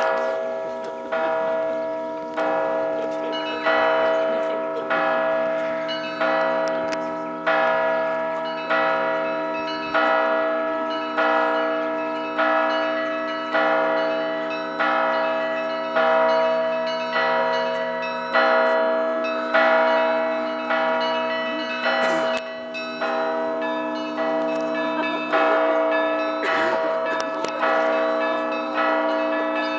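Russian church bells ringing. A bell is struck in a steady rhythm, about once every 1.2 seconds, over the long hum of several bell tones that never die away.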